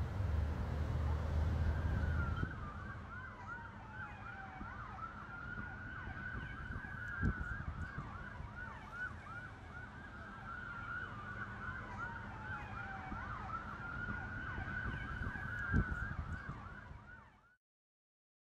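Emergency vehicle sirens sounding, one in a slow wail that rises and falls, with a rapid yelp of short chirps over it. Low wind rumble in the first couple of seconds, two short thumps, and the sound cuts off just before the end.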